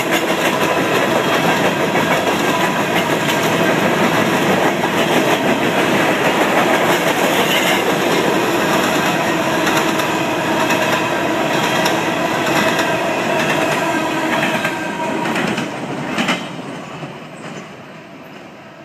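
Empty coal hopper cars rolling past: steel wheels clatter over the rail joints in a dense, steady racket. The sound drops away over the last few seconds as the end of the train goes by, with one sharp clank about 16 seconds in.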